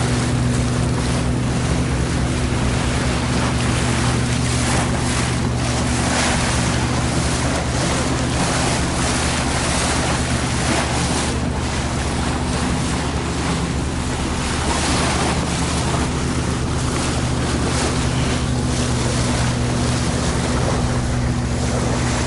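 Motor boat's engine droning steadily at cruising speed, with wind buffeting the microphone and water rushing along the hull, the rush swelling and easing every second or so.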